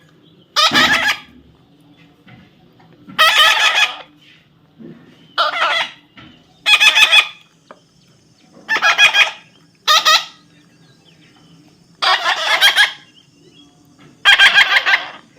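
Young parrot giving loud, harsh squawks over and over, about eight calls, each under a second, every second or two.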